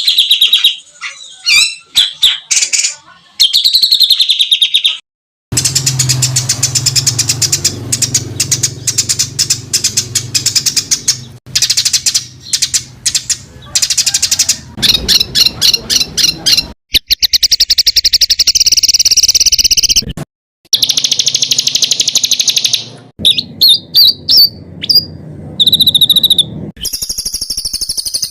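Songbird singing fast, closely packed, harsh runs of repeated notes ('tembakan rapat dan kasar'). The phrases stop and restart abruptly several times. A low hum runs under the middle part.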